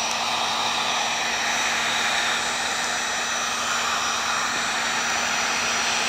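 Wagner electric heat gun blowing steadily, an even rush of air with a thin steady whine, as it is swept over freshly poured epoxy resin to pop surface bubbles.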